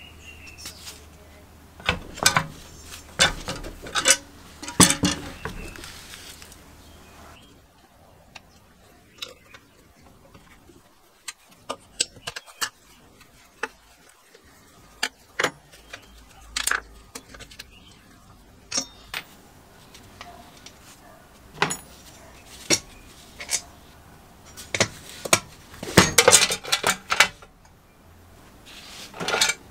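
Metal clinks, taps and clanks of a wrench and loose parts as an old air-compressor motor is taken apart, with clusters of quick clicks near the start and again near the end and sparser single knocks in between.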